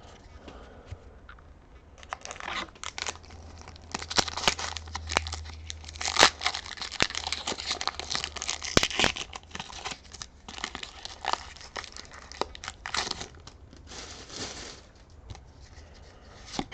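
A foil Pokémon TCG booster pack wrapper being torn open and crinkled, in a long run of crackling rustles.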